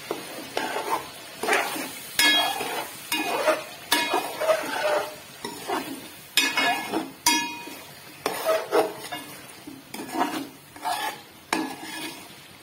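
Metal ladle stirring and scraping marinated country chicken frying in masala in a metal pot: a string of uneven scrapes, with a few sharp clinks of the ladle striking the pot. The chicken is being fried to half-cooked.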